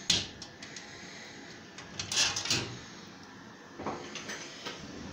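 A glass vivarium front being unlocked and slid open: a sharp click as the ratchet lock comes off, then the glass panel scraping along its track about two seconds in, followed by a few light knocks.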